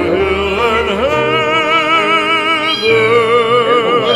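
Background music: a solo voice singing long held notes with a wavering vibrato.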